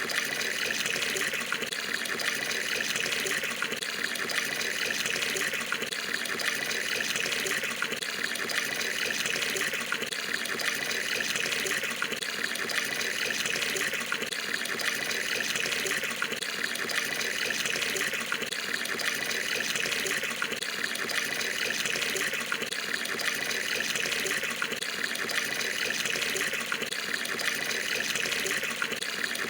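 Water from a tap gushing steadily into a filling Indonesian bathroom water tub (bak mandi), an even splashing rush with no let-up.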